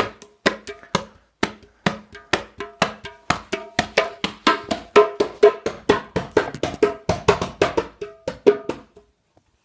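Small rope-tuned hand drum with a skin head, slapped by a toddler's hands: an uneven run of strikes, about three or four a second, each with a short ringing tone. The drumming stops about nine seconds in.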